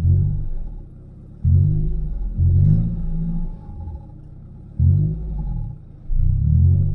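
Turbocharged Honda Prelude four-cylinder engine, heard from inside the cabin, idling with repeated quick throttle blips: about five short revs, each rising in pitch and falling back to idle.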